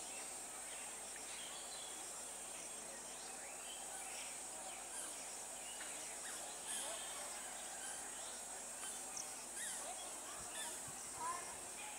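Rural outdoor ambience: a steady high insect drone with scattered bird chirps and calls.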